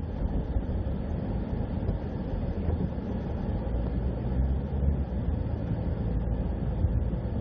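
Steady low road rumble of a moving vehicle travelling along the course.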